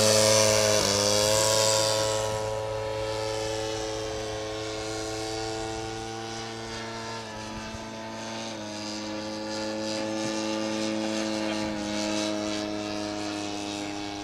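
Quadra 35 two-stroke gasoline engine of a giant-scale Ziroli Fokker Dr.1 triplane model in flight, a steady propeller drone that shifts slightly in pitch a few times with the throttle. It grows fainter over the first few seconds as the plane climbs away.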